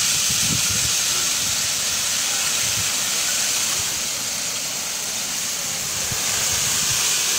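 Wind-driven shore ice piling up over an embankment, with broken ice blocks and slush grinding against each other in a steady hiss. Irregular low rumbles run underneath.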